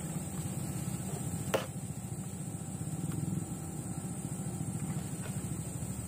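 Low, steady rumble of an idling engine, with one sharp click about one and a half seconds in.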